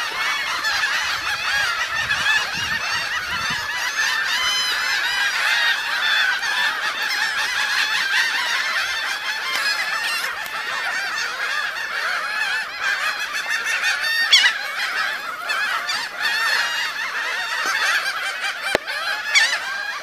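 A flock of laughing gulls calling all at once: a dense, continuous chorus of many overlapping calls.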